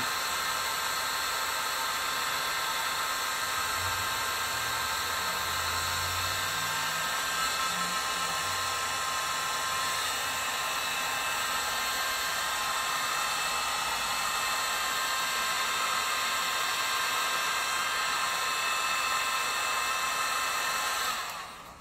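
Electric heat gun running steadily: a constant blowing rush with a faint steady whine, as it heats a shrink-wrap grip sizer on a racquet handle. It is switched off near the end.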